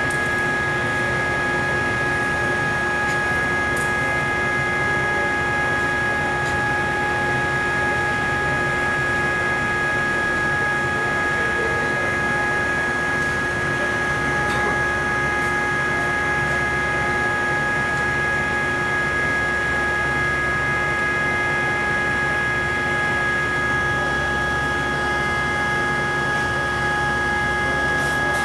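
Steady hiss with several constant whining tones, even in level and unchanging throughout, from orbital MIG welding equipment running.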